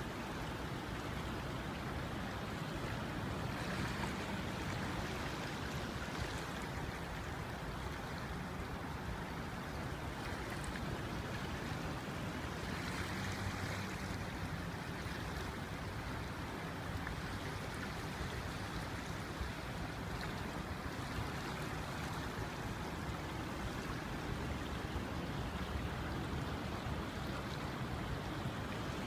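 A river in spate: fast, high floodwater rushing in a steady, unbroken roar of moving water.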